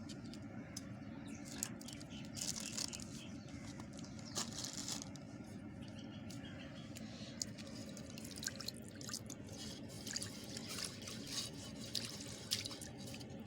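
Irregular small liquid drips and pops, scattered unevenly, over a steady low hum.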